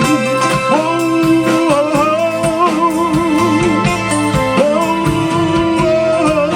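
A soul band playing live: a lead melody line sliding and wavering with vibrato over sustained keyboard chords, guitar and a steady drum beat, with no words sung.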